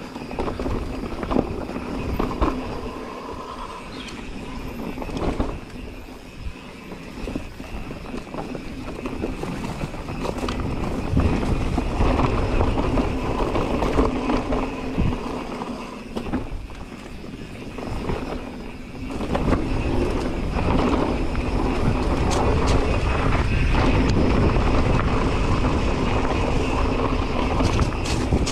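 Mountain bike ridden fast down a dirt forest trail: tyres rolling over packed earth and roots, with the bike knocking and rattling over bumps. The ride gets louder and rougher about two-thirds of the way in.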